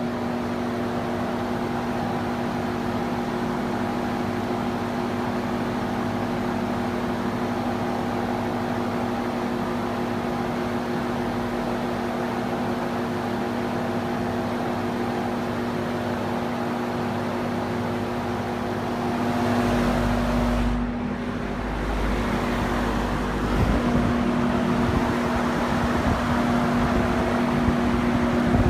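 20-inch Vernco box fan running on high speed: a steady electric motor hum under the rush of air from the blades. About two-thirds of the way through, a low rumble comes in and the sound grows rougher and a little louder.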